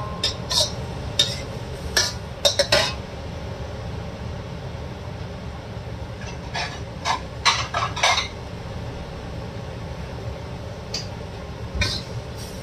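Metal spatula scraping and clanking against a wok while stir-frying vegetables. The strokes come in three flurries: in the first three seconds, around the middle, and near the end. A steady low background hum runs underneath.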